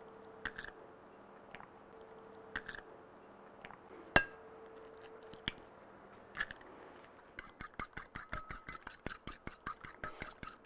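Eggs tapped and cracked against the rim of a ceramic bowl, a few separate sharp taps, the loudest about four seconds in. From about seven seconds in, a fork beats the eggs in the bowl, clinking on the ceramic about six times a second.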